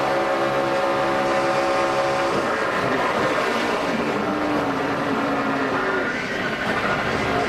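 NASCAR Sprint Cup stock car's V8 engine running at a steady high pitch. About two seconds in, the sound changes abruptly to a rougher, noisier engine and track sound with a lower, wavering note.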